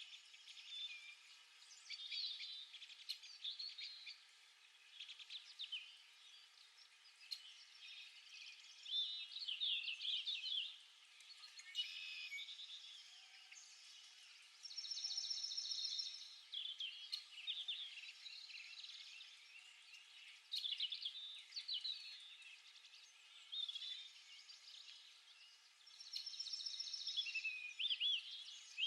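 Small songbirds singing and chirping in a string of short, warbling phrases, with fast trills about halfway through and again near the end.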